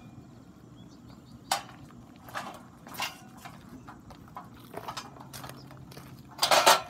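Steel scaffold parts knocking and clanking together as an end frame is fitted onto the bottom rail: a few separate knocks, with a louder cluster of clanks near the end.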